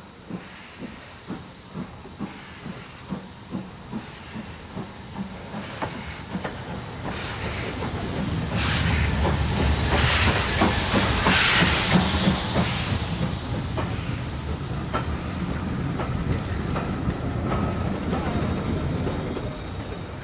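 Steam locomotive working slowly, its exhaust beating about twice a second and growing louder as it approaches. A loud hiss of steam comes as the engine passes about halfway through, then Victorian four- and six-wheeled coaches roll past with wheels clicking over the rail.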